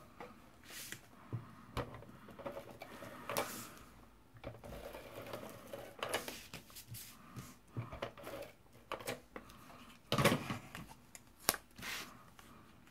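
Sheets of cardstock being handled, slid and pressed on a table: irregular paper rustles, scrapes and small clicks and taps, with one louder rustle about ten seconds in.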